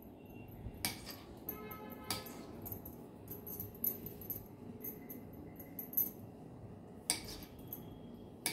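Faint background music with scattered light clicks and clinks and a few sharper knocks, the kind made by kitchen utensils and dough being handled on a board.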